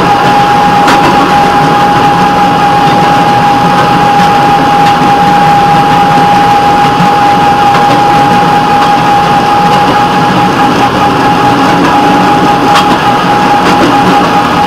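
Rail vehicle running along the track with a steady, loud engine and rolling noise and a constant high whine over it. A couple of faint clicks come through, about a second in and near the end.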